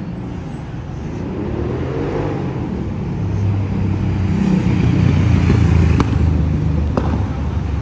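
Diesel engine of a large touring coach pulling along the street and passing close by, a low drone that grows louder to a peak about five to six seconds in.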